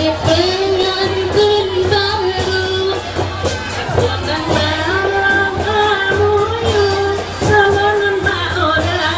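Music: a singer holding long, slightly wavering melodic notes over a band with a steady percussion beat.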